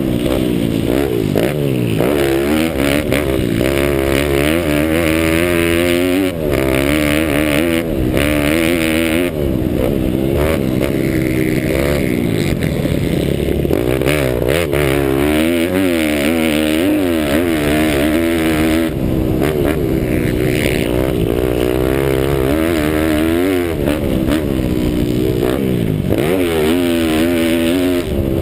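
Pit bike engine racing on a dirt motocross track, heard from the rider's helmet: the revs climb and drop back again and again as the rider accelerates, shifts and rolls off the throttle for corners.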